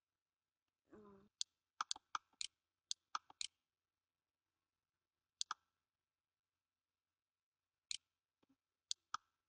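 Computer mouse button clicks: about a dozen sharp clicks, many in quick pairs, bunched between about one and three and a half seconds in, then a few scattered ones near the end.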